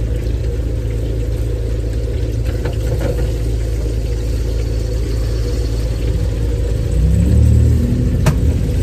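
Steady low machine hum, like a motor running, with a single sharp click near the end.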